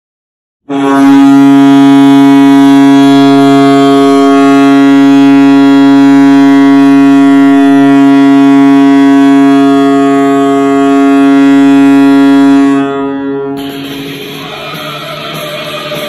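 Hockey goal horn sounding one long, steady blast of about twelve seconds that then dies away. Goal music starts just after it, near the end.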